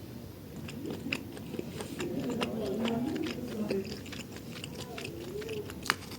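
Close-up mouth sounds of someone chewing food, with many short wet and crisp clicks. About two seconds in, a low wavering voiced murmur joins the chewing for a second or two.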